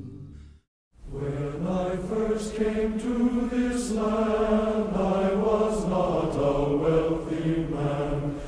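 Recorded folk singing: one song fades out, there is a brief gap of silence just under a second in, and a new song starts with voices singing.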